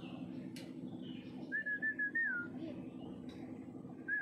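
A bird singing a short whistled phrase of four clear notes, the last one sliding downward, repeated about every two and a half seconds, over a steady low hum.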